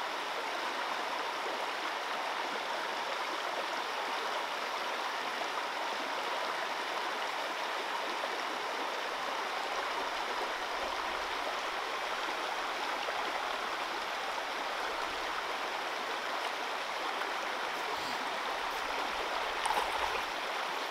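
A shallow mountain stream running over rocks in a riffle: a steady, even rush of water.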